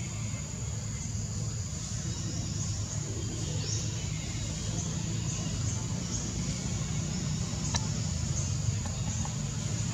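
Outdoor background ambience: a steady low rumble under a steady high-pitched drone, with a few faint short chirps and a couple of ticks scattered through.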